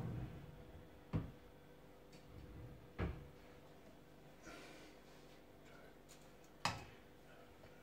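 Three sharp knocks and clicks of kitchen utensils. The last and loudest, near the end, is a wire whisk set down into a stainless steel saucepan.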